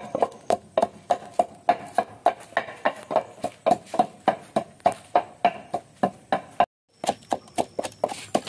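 Long wooden pestle pounding dried red chillies in a mortar to make sambal: steady, evenly spaced thuds about three a second, with a brief break about seven seconds in before the pounding resumes.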